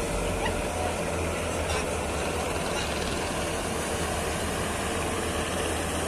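Fishing boat engines running steadily, with a low hum under the continuous wash of breaking surf.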